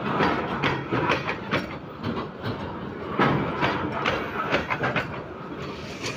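Freight coal hopper wagons rolling past at close range, their steel wheels and coil-sprung bogies clattering and knocking irregularly over a weak, loose railway track, several sharp knocks a second over a steady rumble.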